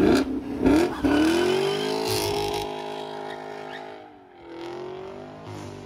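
Car engine revved sharply three times in quick succession, then the engine note falls away and fades over a few seconds, rising and falling once more near the end.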